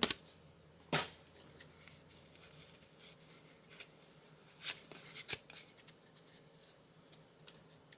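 Pokémon trading cards being handled and slid against one another, a few short soft flicks and rustles spread through the quiet, loudest about a second in and again around the middle.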